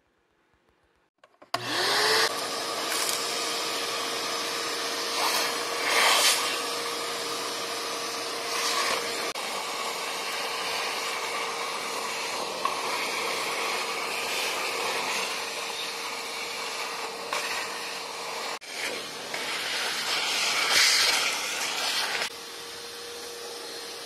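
Shop vac motor starting up about a second and a half in, whining up to speed, then running steadily with a constant whine and airflow rush. Several brief louder rushes come as the nozzle pulls debris off the carpet, and the sound steps down a little quieter near the end.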